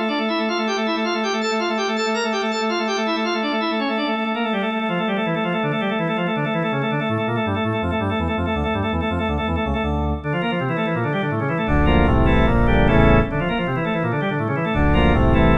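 Organ-like keyboard music: held chords under a running pattern of notes, with low bass notes stepping in partway through and the music growing louder about twelve seconds in.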